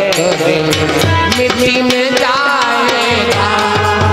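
Devotional folk song: a male voice sings over tabla drumming that keeps a steady beat.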